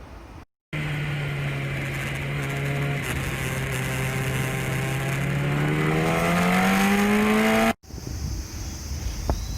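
A vehicle's motor, a steady pitched hum that rises in pitch and grows louder over its last few seconds as it accelerates. It starts and stops abruptly.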